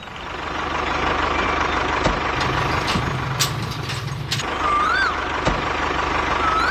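A small engine idling steadily, a low hum swelling for a couple of seconds midway. Two short rising-and-falling chirps come near the end.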